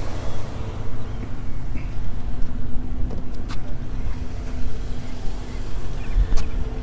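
Toyota 1JZ-GE 2.5-litre inline-six engine idling steadily, with a couple of light clicks.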